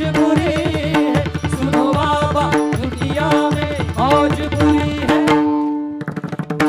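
Qawwali music: tabla keeping a steady rhythm under a gliding melody line. About five and a half seconds in the music thins out, then starts again just after six seconds.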